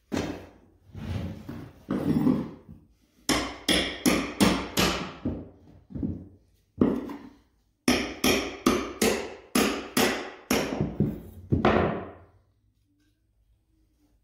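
Short-handled sledgehammer striking a steel pry bar to drive it under carpet tack strip on a wooden subfloor. There are about twenty sharp metal-on-metal blows, spaced at first and then in quick runs of several, each ringing briefly. They stop about two seconds before the end.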